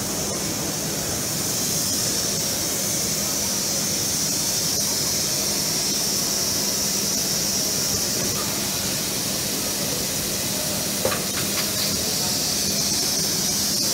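Packaging machinery running: a steady high hiss over a constant low hum, with a few faint clicks about eleven seconds in.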